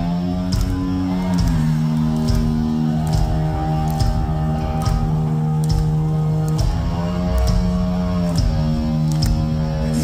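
Heavy metal tribute band playing live: electric guitar holding long sustained notes, bending in pitch about a second in and again near the end, over regular sharp percussive hits.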